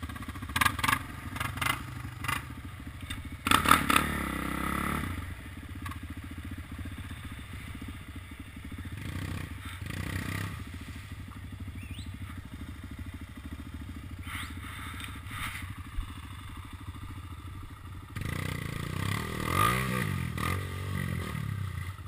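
ATV engines running at idle, with two surges of revving: one about three and a half seconds in and a longer one near the end, rising and falling as the throttle is worked. Short clattering knocks come in the first couple of seconds.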